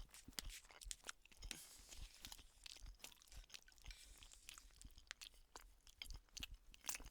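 A person chewing a mouthful of chicken tikka and rice close to the microphone: faint, irregular wet clicks and smacks throughout.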